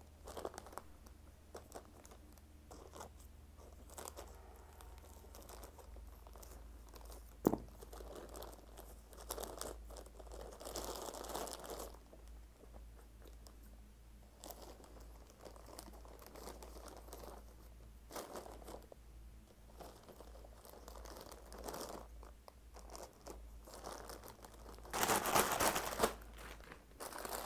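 A plastic courier mailer bag being cut open with scissors and handled: scattered snips, clicks and soft plastic crinkling, with one sharp click about a third of the way in. Louder crinkling of plastic wrapping comes near the end.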